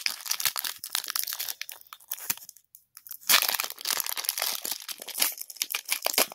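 Foil Pokémon card booster pack wrapper crinkling and tearing open in the hands: a dense run of crackles, with a short lull and then the loudest tearing about three seconds in.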